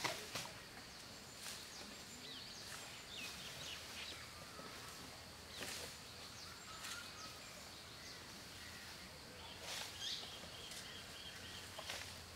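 Faint forest ambience with birds chirping, including a quick repeated trill about ten seconds in, and scattered crunches and rustles as an Asian elephant tears up grass and chews it.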